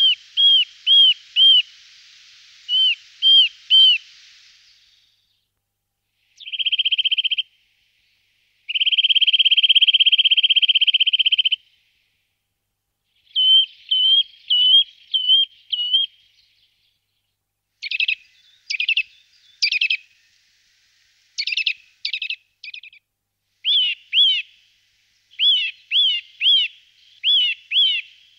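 Eurasian nuthatch song: loud, clear whistled notes repeated in short runs, a short fast trill and a longer rapid trill of about three seconds, then runs of sharp falling notes, in separate bursts with pauses between.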